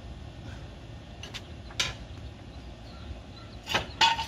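A few short, sharp clicks and clanks of metal being handled while working at a car's front wheel. They come about a second in, again shortly after, and loudest as a close pair near the end, the last ringing briefly.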